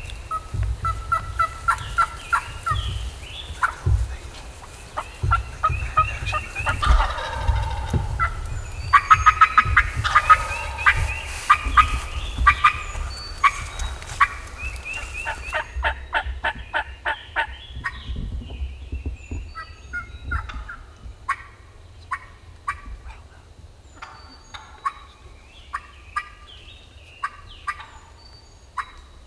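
Wild turkeys gobbling, loudest around 7 and 10 seconds in, among repeated runs of quick, short yelping notes.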